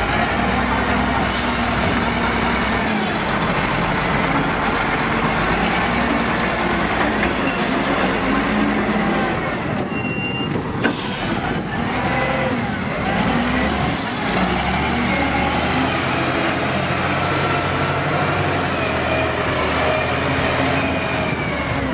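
Caterpillar 966H wheel loader's diesel engine running steadily under load as the machine drives and pushes demolition rubble, with a short hiss about eleven seconds in.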